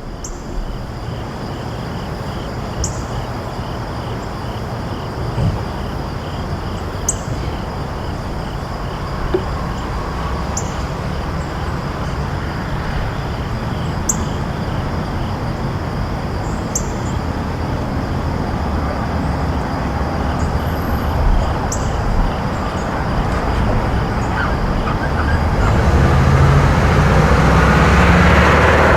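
Outdoor ambience of steady road traffic noise, with insects, likely crickets, trilling steadily throughout and a few short high chirps. A vehicle passes, growing louder over the last few seconds.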